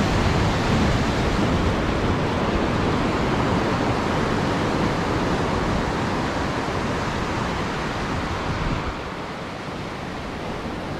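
Ocean surf breaking and washing up a sandy beach: a steady rushing hiss that eases slightly near the end.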